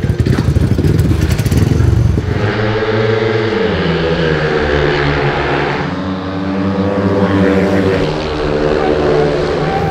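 A speedway motorcycle engine running and revving. A rapid string of sharp pops fills the first couple of seconds, then the pitch falls and rises several times with the throttle.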